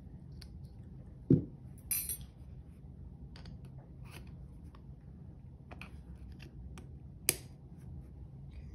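Circlip pliers and a steel circlip clicking and scraping on a clutch-pack input shaft as the circlip is worked down it: light metallic ticks throughout, a dull knock about a second and a half in, a short scrape just after it, and a sharp click near the end.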